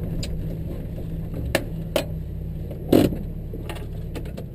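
Off-road 4x4's engine running steadily at low speed as it crawls over a rough riverbed, its steady note dropping away near the end. Four sharp rattles and clunks from the cab cut through, the loudest about three seconds in.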